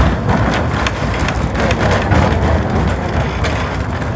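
Ride noise of a carriage of La Trochita, the 750 mm narrow-gauge steam train, rolling along the track: a steady low rumble with irregular rattles and knocks.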